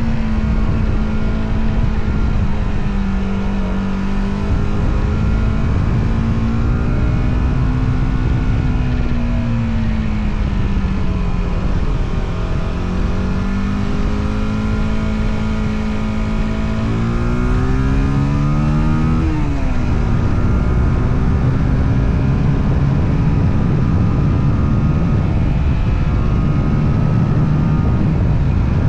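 Motorcycle engine running under way, its pitch rising and falling with the throttle. About two-thirds of the way through it revs up sharply for a couple of seconds, then drops abruptly.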